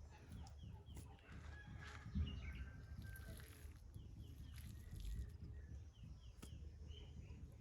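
Chickens clucking, with two quick runs of short, high, falling peeps.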